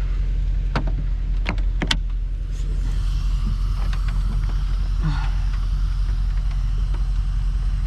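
A few sharp clicks, then an electric motor whirring steadily for several seconds on the Mercedes SL550's trunk lock actuator, which is working. A steady low hum runs underneath.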